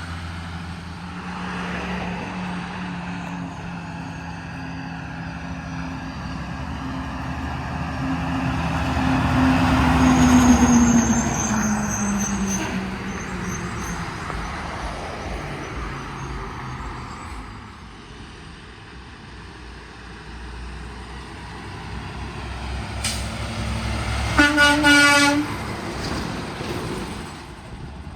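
Trucks passing on the road: one grows louder to a peak about ten seconds in, its engine note dropping as it goes by and fades. Near the end a vehicle horn sounds once for about a second.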